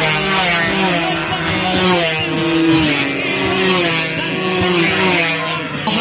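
Several Yamaha F1ZR two-stroke race motorcycles running hard past the camera. Their overlapping engine notes keep rising and falling in pitch as the riders rev and change gear.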